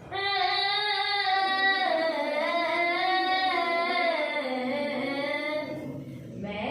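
A single voice singing one long held note, dropping in pitch about two seconds in and again near the end before it stops.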